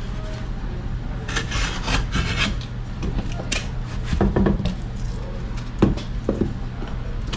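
A utility knife scoring and cutting gypsum drywall: scratchy strokes of the blade across the paper face, then the board snapping along the score and the knife cutting through the paper backing, with several sharp clicks and knocks.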